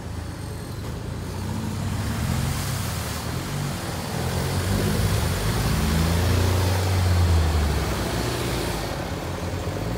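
Toyota 15B four-cylinder diesel engine of a rock-crawler buggy revving up and down under load as it drives through deep mud and water. It grows louder, peaking a little past the middle.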